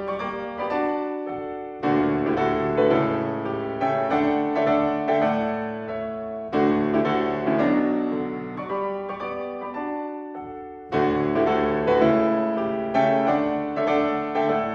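Solo piano playing classical music: phrases of chords and running notes, each opening with a strong attack about every four to five seconds and then dying away.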